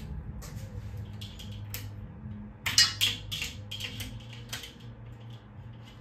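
Pull-chain switches on a 42-inch Menards TOC Eros ceiling fan clicking a number of times as the light comes on and the motor starts the blades turning, over a low steady motor hum. The loudest clicks come close together about three seconds in.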